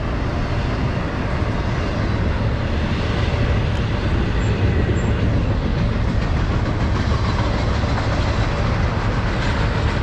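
Long double-stack container freight train running past steadily, its wheels and cars making a continuous, even noise.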